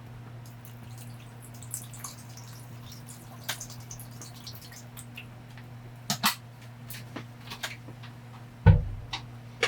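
Scattered drips and light taps of rain water on a light-truck camper shell, over a steady low hum, with one dull thump about nine seconds in.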